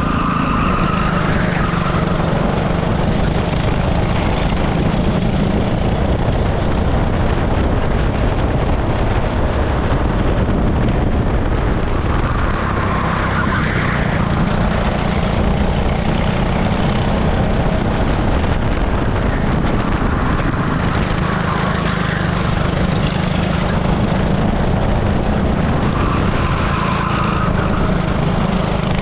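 An 18 hp super kart's engine running at racing speed, heard onboard; the engine note drops away and picks up again every several seconds.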